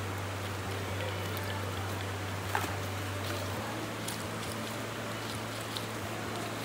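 Shallow stream running over a pebble bed, a steady rush of water, with a few light clicks of pebbles knocked together as hands dig in the wet gravel.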